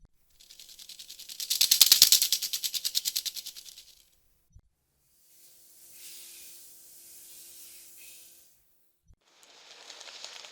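Snake slithering and hissing sound effect: a loud hiss with a fast pulsing texture for about four seconds, a softer steady hiss a second later, and another hiss building near the end.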